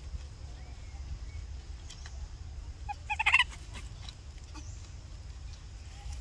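A brief, harsh animal call about halfway through, over a steady low background rumble and a few faint rustles.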